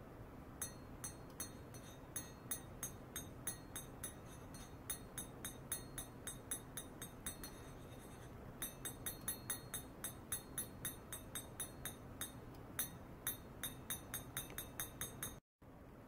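A run of sharp, ringing metallic clicks, about two to four a second, from the ultrasonic test rig: a metal plate and probe wired to a function generator. The clicks pause briefly about halfway and come faster after. The sound cuts out for a moment near the end.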